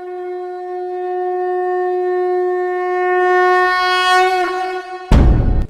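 A conch shell (shankh) blown in one long, steady note for about five seconds, wavering slightly near the end. About five seconds in, a short, loud, noisy burst cuts it off.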